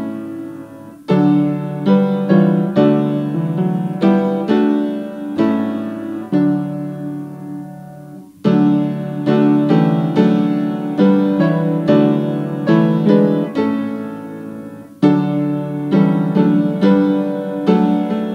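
Piano playing a hymn tune in full chords, phrase by phrase, each chord struck and fading. There are short breaks between phrases about a second in, near the middle and a few seconds before the end.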